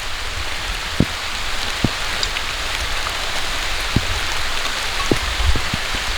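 Steady hiss of rain falling, with a few soft taps scattered through it.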